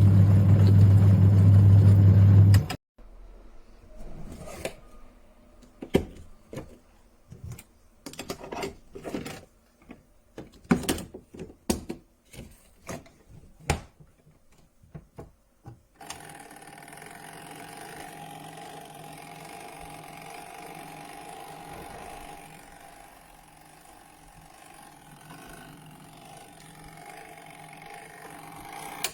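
Twin-tub washing machine's motor humming loudly and steadily, cutting off abruptly about three seconds in. A scattered run of clicks and knocks follows, and from about halfway on a fainter steady hum with a thin whine.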